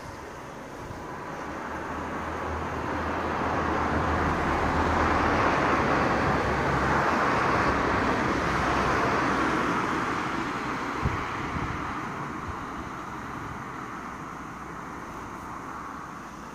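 A car passing by: engine and tyre noise swell over the first few seconds, stay loudest through the middle, then slowly fade away.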